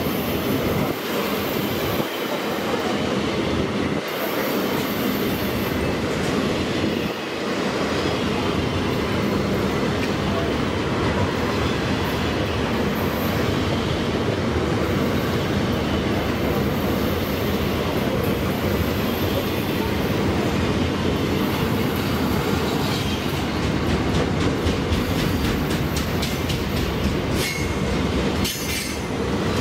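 Freight train wagons rolling past in a continuous rumble, with wheels clattering over rail joints. A run of sharp clicks comes near the end.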